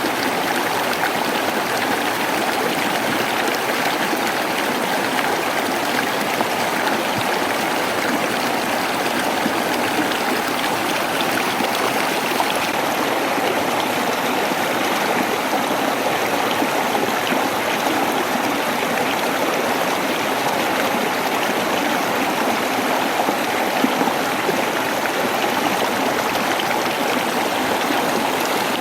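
Waterfall: running water rushing steadily and evenly, with no breaks.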